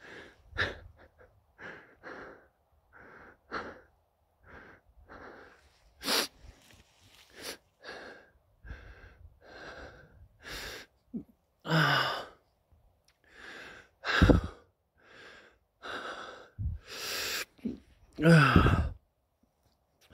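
A man breathing heavily in quick, gasping breaths, a few of them voiced, the last one falling in pitch near the end; the hard breathing comes from excitement and high elevation.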